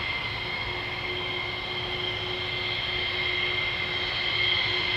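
Twin-jet airliner's turbofan engines whining steadily as the aircraft rolls along the runway, with two high steady tones over a broad rush that builds slightly toward the end.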